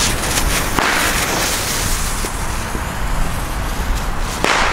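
Lit fuses of two small Jacky Chans ground firecrackers hissing and sparking, over steady wind noise on the microphone, with a sharp crack a little before the end.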